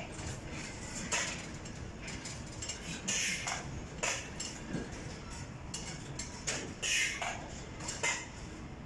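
Metal clinking and clanking every second or two over a steady low background noise, from steel rigging and parts being handled while a load is slung and placed onto a truck trailer.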